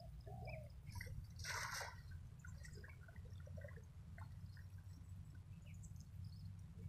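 Faint water splashing and dripping, with one brief louder splash about a second and a half in, over a low steady rumble.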